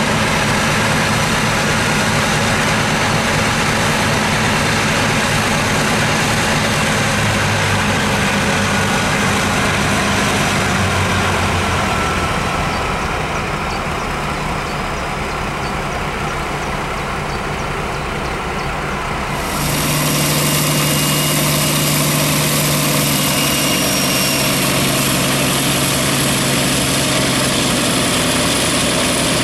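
V200 diesel-hydraulic locomotive's Maybach diesel engines running while the locomotive stands still, a steady low engine sound. It runs quieter for a few seconds past the middle, then, after an edit, is heard closer, with a steady low hum and a thin high whine.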